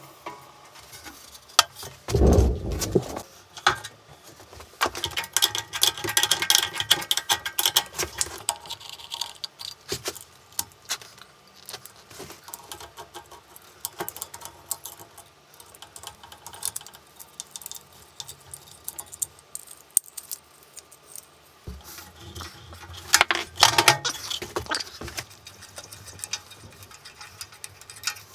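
Hand-dismantling of a bench drill: metal parts and tools clinking and clicking, with screws and a screwdriver working on the pulley, wiring and feed-handle hub. A single heavy knock about two seconds in, as of a heavy metal part being set down, is the loudest sound. There is a burst of louder clinking near the end.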